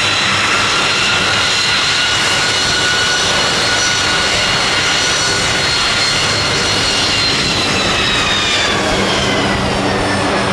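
McDonnell Douglas KC-10 Extender's three General Electric CF6 turbofans running at taxi power as the tanker rolls past: a loud, steady jet rumble with a high whine. About three-quarters of the way through, the whine starts sliding down in pitch as the aircraft goes by.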